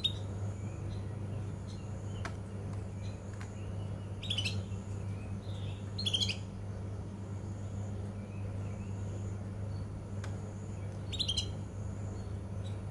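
Young male domestic canary twittering: a few short, sharp chirping bursts with fainter warbled notes between them, the scattered practice song (ngeriwik) of a juvenile male still learning to sing. A steady low hum runs underneath.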